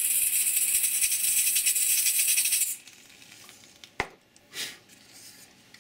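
Butane hissing as a canister is pressed into a Bernzomatic micro torch's fill valve to refill it, cutting off suddenly a little under three seconds in. A single sharp click follows about a second later.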